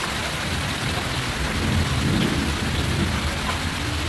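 Small fish frying in oil in a wok on a portable gas stove: a steady sizzling hiss over a low rumble.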